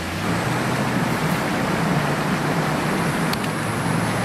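Creek water pouring over a low concrete weir in a steady rush.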